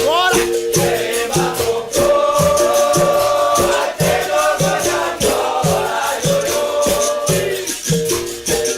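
Capoeira roda music: voices singing together over a steady drum beat, with the caxixi rattling in a dense, even rhythm.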